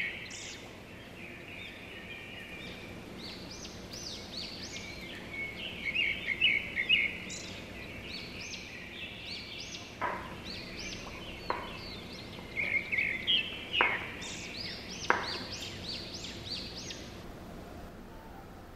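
Small birds chirping in repeated bursts of quick, high notes. In the second half there are four short knocks of a knife blade on a wooden cutting board as an avocado is sliced.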